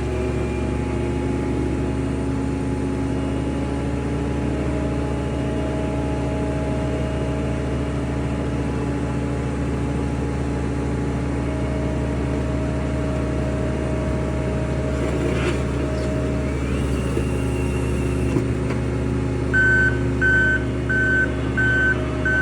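New Holland C362 skid steer engine running steadily. Near the end its back-up alarm beeps five times, about 0.7 s apart, as the machine reverses.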